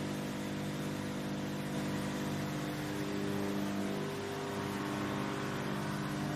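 Tractor engine driving a PTO wood chipper, running steadily at working speed with a constant hum; the pitch shifts slightly about four seconds in.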